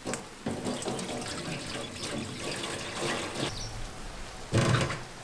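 Water pouring from a plastic jerry can into a steel basin. About four and a half seconds in comes a louder splash as a basket of bell peppers and green chillies is tipped into the water.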